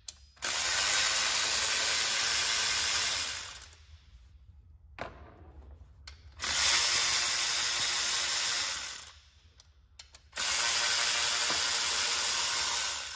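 Cordless electric ratchet spinning out 10 mm intake manifold bolts, three runs of about three seconds each with short pauses between.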